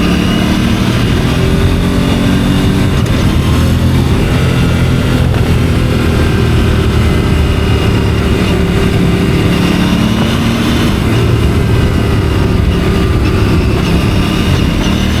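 Aprilia RS 457's parallel-twin engine pulling at fairly steady revs under way, heard from the rider's helmet, with wind rush over it.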